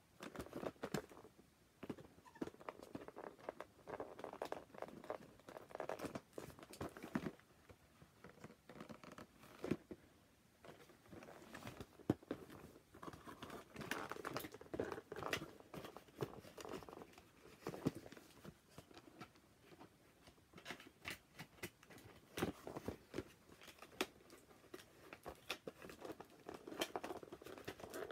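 Cardboard toy box being handled and worked open: irregular rustling and crinkling of the packaging with many small clicks and taps.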